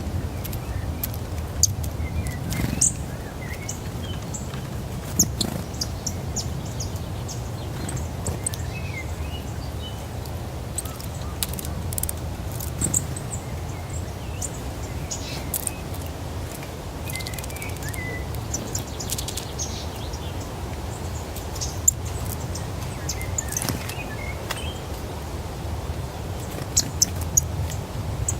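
Small birds at a feeder giving short high chirps and calls, scattered throughout, with occasional sharp ticks, over a steady low background rumble.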